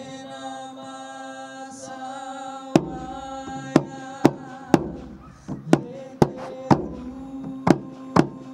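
A man singing a long held note into a microphone over amplified music; about three seconds in, sharp percussion hits come in and keep a beat of one or two hits a second.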